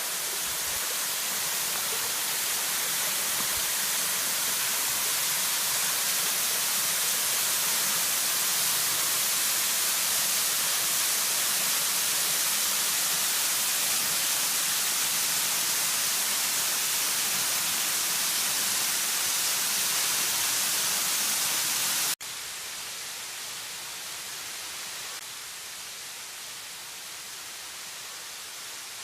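Steady rushing hiss of falling water from a waterfall. About three-quarters of the way through it cuts off abruptly to a quieter, steadier rush.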